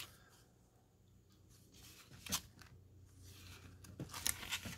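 Paper pages of a small printed catalog being handled and turned: faint crisp rustles, one about two seconds in and a few more near the end.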